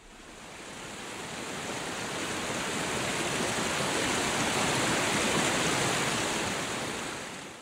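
Rushing river water, a steady white-water rush that swells up over the first three seconds or so and then cuts off abruptly at the very end.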